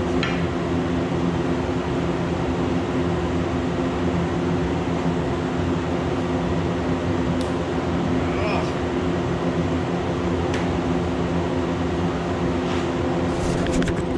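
Arc welding in progress: a steady hum from the welder under an even, continuous hiss from the arc, laid in short cold-stitched runs.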